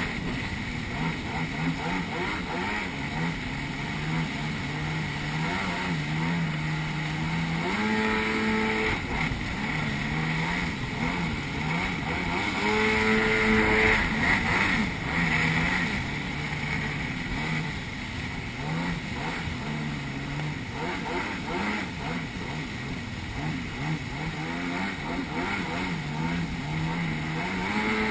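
Jet ski engine running at speed over a constant hiss of spray. Its pitch jumps up briefly about 8 seconds in and again around 13 seconds as the revs rise.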